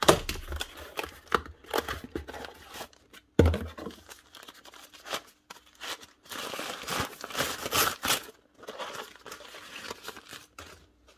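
Cardboard box being opened and brown packing paper crumpling and crinkling as a new field coil is unwrapped, with a dull thump a little over three seconds in.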